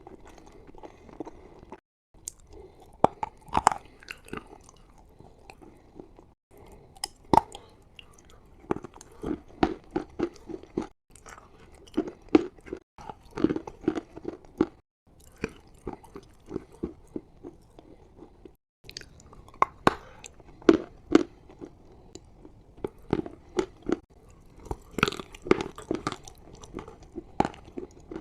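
Close-up chalk eating: sharp crunching bites and chewing of chalk, some of it with chalk paste, repeated many times. It is broken by several brief silences between spliced clips.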